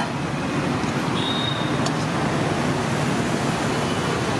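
Steady roadside traffic noise, with a short high tone a little after a second in and a single light click near two seconds.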